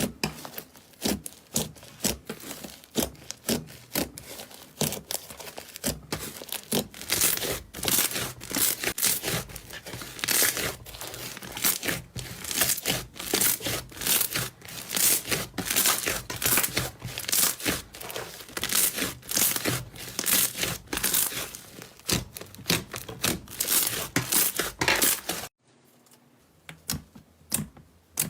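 Slime being squished and stretched by hand, a dense, continuous run of sticky crackles and pops. About 25 seconds in it cuts to a quieter stretch of sparser clicks.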